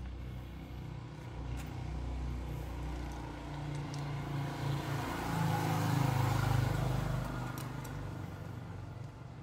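A motor vehicle's engine running and passing by, rising to its loudest about five to seven seconds in and then fading. A few light metal clicks of parts and tools being handled on the engine are heard over it.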